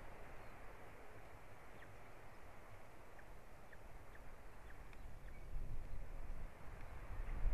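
Outdoor ambience at a treetop nest: a steady hiss of wind on the microphone, with low rumbling gusts growing stronger in the last couple of seconds. Several faint, short chirps of small songbirds sound in the middle.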